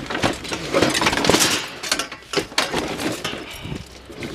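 Junk being handled and shifted in a metal dumpster: an irregular run of sharp knocks, clatters and rustles.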